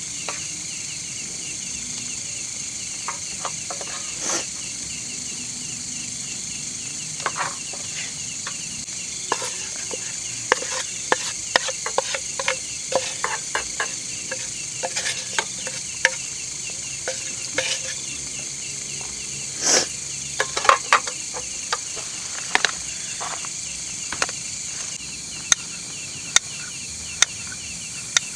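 Night insects, crickets among them, chirping steadily in a fast pulsing chorus, with many scattered sharp clicks and knocks, thickest in the middle.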